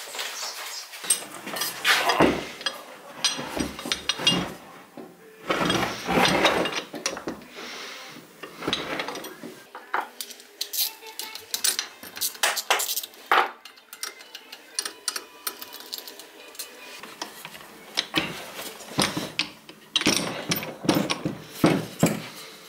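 Irregular metallic clinks, knocks and scrapes of a hand wrench and steel parts: bolts being worked loose and a cast aluminium worm gearbox being parted from its electric motor on a workbench.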